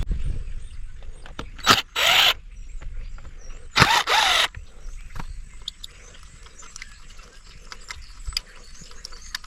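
Cordless drill-driver backing out screws: two short bursts about two seconds apart, each starting with a sharp click, followed by small clicks and taps of metal parts being handled.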